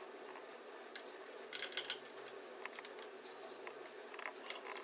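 Light clicks and scratching of fingers handling the metal parts in the bobbin area of a Singer 401 sewing machine, with a louder scratchy rustle about one and a half seconds in. A steady low hum runs underneath.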